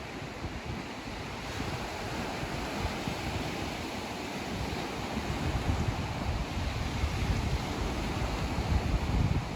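Ocean surf washing onto a beach, a steady rush of breaking waves, with wind gusting on the microphone.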